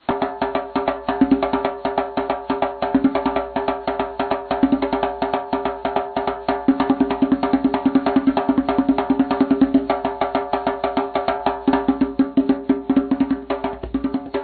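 Background music with fast, steady clicking percussion over sustained pitched tones.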